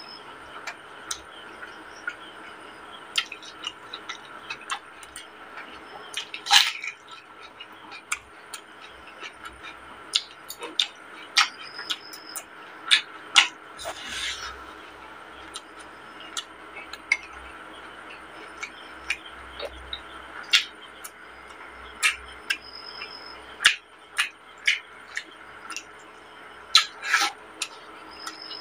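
Close-miked mouth sounds of a person eating rice and chicken curry by hand: irregular wet chewing, lip smacks and clicks, with a longer, noisier slurp about halfway through. A faint steady hum runs underneath.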